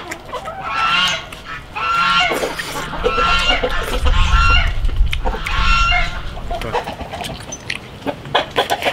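Domestic fowl calling: a run of short, pitched calls about once a second, thinning out after about six seconds.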